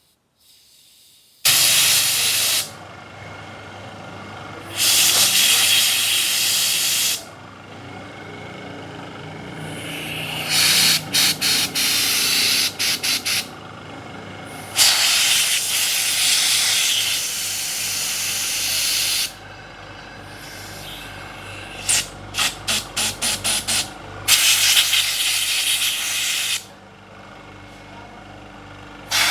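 Repeated blasts of compressed air from an air blow gun. Some blasts are held for a second or two, and others come as quick strings of short bursts, twice.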